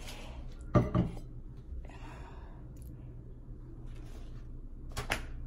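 Two sharp knocks about a second in, then a soft breath, and another click near the end: handling noise in a small room, over a low steady hum.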